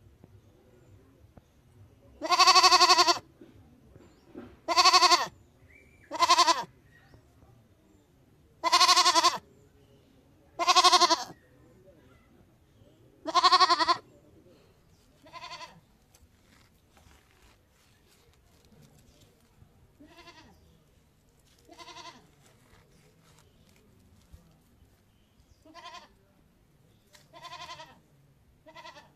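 A bleating animal, most likely a goat, calling again and again: about a dozen quavering bleats, each under a second long. The first half dozen are loud and the later ones fainter.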